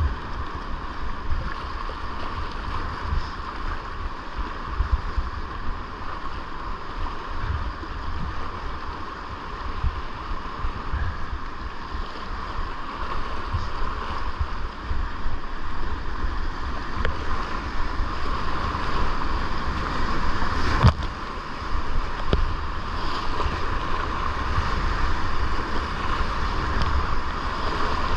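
Whitewater rapids rushing steadily around a kayak, with a heavy low rumble of water and wind buffeting the microphone. A single sharp knock about 21 seconds in.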